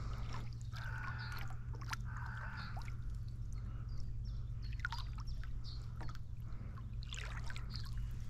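Oars of an inflatable rowing boat working the water: blades dipping and pulling, with water trickling and dripping off them and scattered small clicks.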